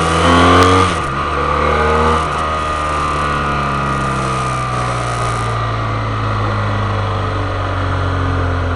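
A motor vehicle engine revving, its pitch rising for the first second, then dropping abruptly about a second in and running on steadily with a slowly falling pitch.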